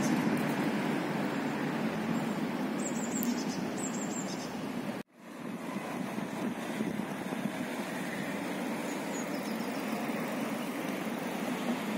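Steady city ambience, mostly a low rumble of distant road traffic, with a few short high bird chirps about three to four seconds in. The sound drops out abruptly about five seconds in and fades back up.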